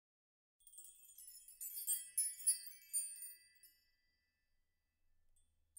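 A short, high-pitched tinkling chime jingle: quick bell-like notes over about three seconds that die away near the middle.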